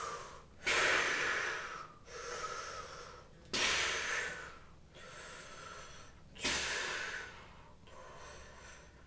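A person breathing deeply and slowly during a stretching exercise: three loud breaths that start suddenly, about three seconds apart, each followed by a quieter breath.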